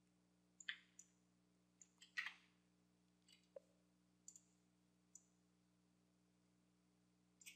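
Near silence over a faint low steady hum, broken by about ten scattered faint clicks of a computer mouse.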